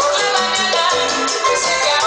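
Salsa music played loud over a sonido's sound system at a dance, a steady beat with pitched instruments throughout.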